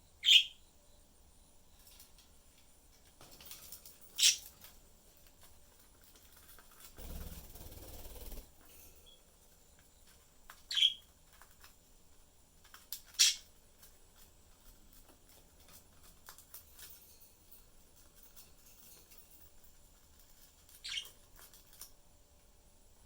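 Budgerigars giving single short, sharp chirps, about five spaced several seconds apart, with a brief rustling noise about seven seconds in.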